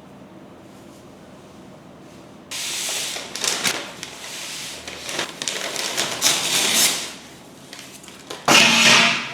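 Packaging of a Lego set being handled: after a quiet start, crinkling and rustling with sharp clicks comes in bursts about two and a half seconds in, and a louder burst follows near the end.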